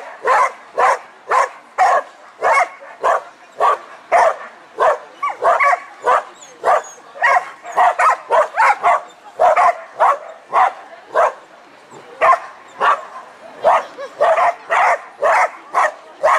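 A dog barking over and over, short sharp barks about two a second without a break, as it runs an agility course.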